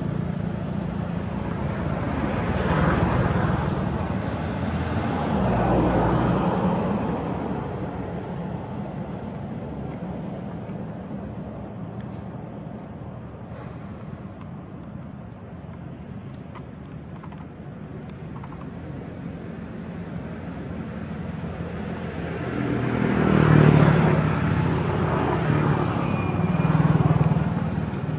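Road traffic: motor vehicles passing one after another, each swelling up and fading away, twice in the first few seconds and twice near the end, over a steady low engine hum.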